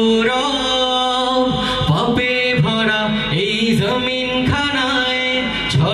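A group of male voices singing an Islamic gojol together into microphones, over a low rhythmic pulse.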